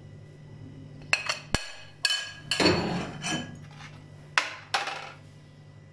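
Ceramic plates and a spoon knocking and clinking as spices are tapped and scraped off a plate into a bowl: a few sharp knocks, a longer scrape near the middle, then two more knocks.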